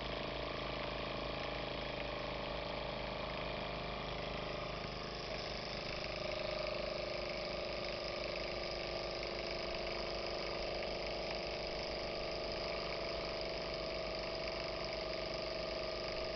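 Jensen model #5 toy steam engine running, its small cylinder exhausting in a fast, even beat with a hiss of steam and the whir of the flywheel. It picks up a little about five seconds in.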